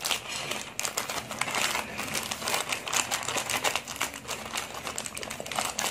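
Plastic courier mailer bag being handled and torn open by hand: continuous crinkling and crackling of thin plastic film with small tearing sounds.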